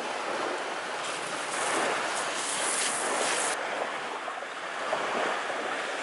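A steady rushing noise of wind and surf on the shore, louder for a couple of seconds and dropping off suddenly about three and a half seconds in.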